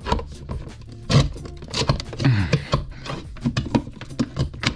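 Fish rod being pushed through an outlet box into a wall cavity: a run of irregular clicks, taps and scrapes as it rubs on the box and drywall, with a brief squeak a little past halfway.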